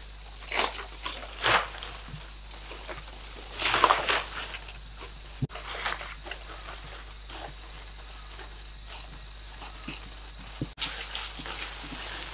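Leaves rustling as they are handled and pressed flat by hand, in short bursts with the loudest about four seconds in. Near the end, dry leaves being scattered give a steadier crackling rustle.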